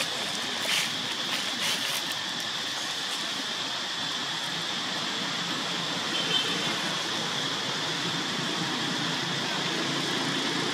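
Dry leaves crackling a few times in the first two seconds as macaques shift and handle leaves in the leaf litter, over a steady outdoor hiss.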